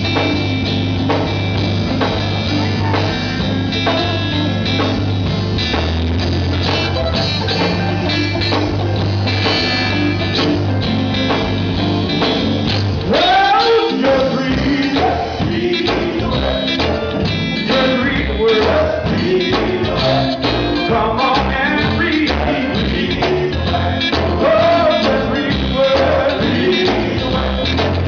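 A live gospel band playing electric guitars, bass and drums, with a steady bass line. About halfway through, a lead vocalist starts singing over the band.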